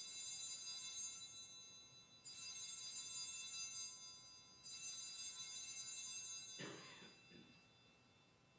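Altar bells (Sanctus bells) rung three times, about two and a half seconds apart, each ring shimmering and fading away: the bells rung at the elevation of the chalice after the consecration.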